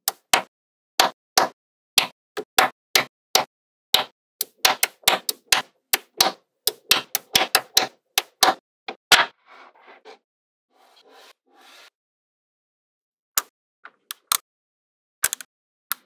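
Small magnetic balls clicking sharply as rows of them are snapped onto a slab of magnetic balls, about two or three clicks a second in an irregular run. Around the middle the clicks stop and the balls rattle faintly for a couple of seconds, then a few single clicks follow after a pause.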